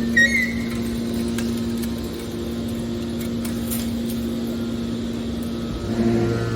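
Aluminum can baler's hydraulic power unit running with a steady machine hum. A few brief high chirps come at the very start, and a deeper, louder hum joins near the end.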